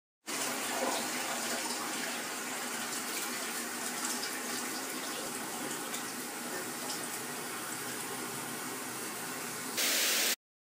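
A steady rushing hiss, then a short, louder burst of TV-static white noise near the end that cuts off abruptly.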